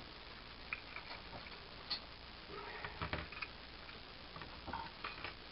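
Scattered faint clicks and light knocks from hand tools being handled.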